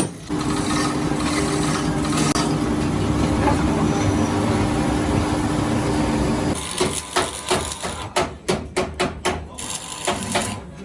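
A power tool runs steadily with a constant hum for about six seconds, then stops and gives way to a quick series of sharp knocks, about three a second, like hammer blows during axle repair work.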